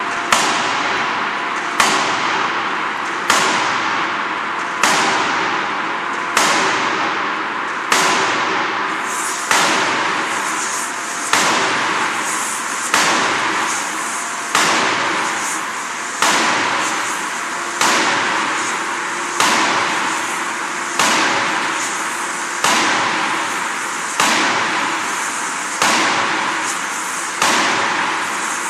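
A 16-ton closed-die hydraulic forging hammer striking hot steel in its dies: a sharp bang about every 1.6 seconds, each with a ringing tail, over a steady machine hum.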